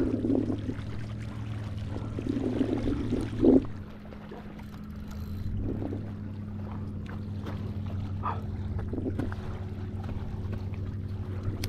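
A boat motor runs with a steady low hum, which shifts slightly about four seconds in. A few louder bursts of noise come over it during the first four seconds, the loudest about three and a half seconds in.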